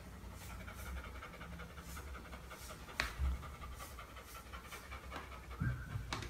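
Golden retriever panting steadily, about two to three breaths a second. One sharp click about halfway through.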